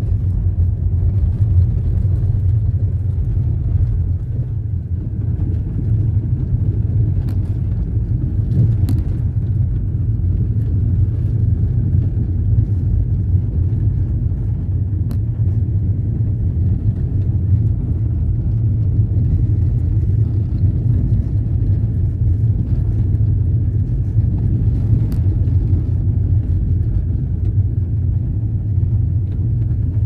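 A vehicle driving along an unpaved dirt road: a steady low rumble of tyres, engine and wind, with a few faint clicks scattered through it.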